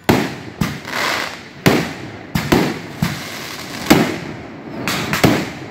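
Gunfire from a staged assault demonstration: about nine sharp shots at uneven spacing, each with a short echo.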